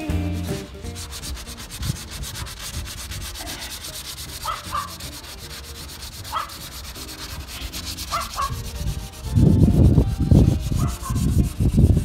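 Hand sanding of a 1963 Mercury Monterey's steel body panels, sandpaper rubbed back and forth in quick even strokes to take the old paint down to bare metal. The strokes get much louder and heavier over the last few seconds.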